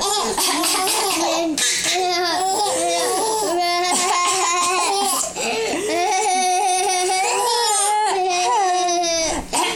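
A baby laughing with long, high-pitched squealing laughs, with a young child laughing along.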